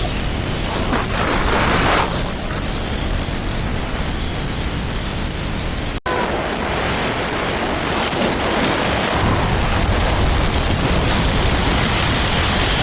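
Loud, steady rushing of storm wind buffeting a doorbell camera's microphone, swelling briefly near the start, with a sudden break about six seconds in.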